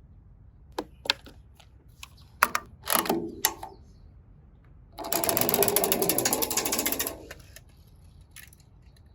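Small toy cars knocking and clicking on hard plastic, a few sharp knocks, then about two seconds of dense, fast rattling, as a minicar runs down a plastic slide.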